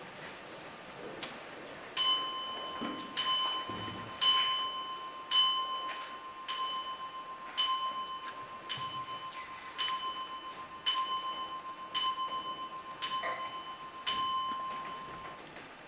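A single bell-like chime struck twelve times at an even pace, a little slower than once a second, each strike ringing on into the next before the ringing dies away after the last, as a clock strikes twelve.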